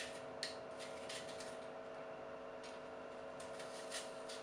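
Hand-held vegetable peeler scraping and clicking on an apple's skin in short, uneven strokes as the apple is peeled, the sharpest clicks about half a second in and near the end, over a steady low hum.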